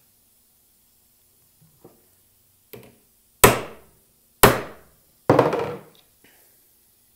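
A ball peen hammer striking an 11 mm quarter-drive socket used as a drift, driving a steering-shaft U-joint needle-bearing cup deeper into its yoke. A couple of light taps come first, then three hard metallic blows about a second apart, each ringing briefly.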